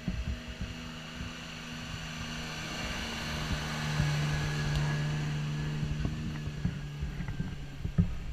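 Unimog 404 fire tender's six-cylinder petrol engine running as the truck drives past, growing louder to a peak about four seconds in and fading as it pulls away.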